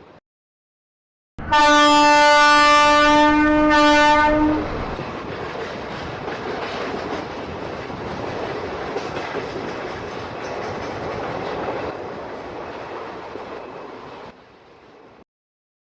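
Train sound effect: a locomotive horn sounds one long blast with a short second blast at its end, then the train rolls away with a steady rumbling clatter that fades and cuts off near the end.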